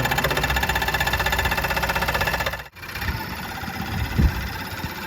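Vintage Dunlap 13-inch jigsaw (scroll saw) running with a fast, even chatter as its blade strokes up and down through plywood. The sound cuts off abruptly a little over halfway, and a few low knocks follow.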